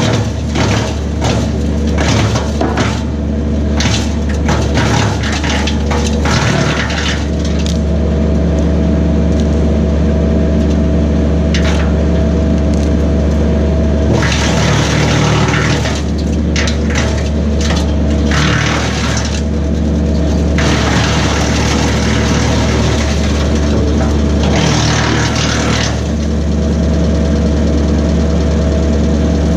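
A Kubota B2601 compact tractor's three-cylinder diesel runs steadily, driving a BECO 4-inch PTO wood chipper. Spells of loud crunching and cracking come and go as branches are fed through and chipped.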